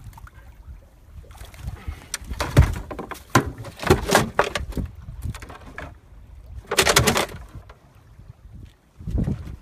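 Irregular knocks, clatter and rustling from gear being handled aboard a small fishing boat, with a louder rustle about seven seconds in.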